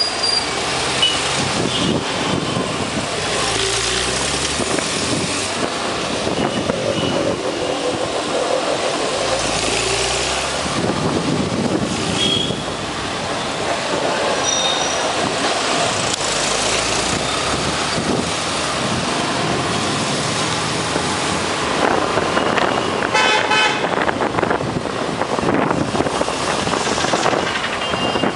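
Steady city traffic: engine and road noise with short car horn toots now and then, and a rapid run of beeping honks about 23 seconds in.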